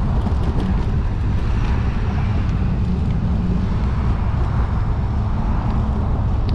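Wind buffeting the microphone of a camera on a moving bicycle ridden into a headwind: a steady low rumble.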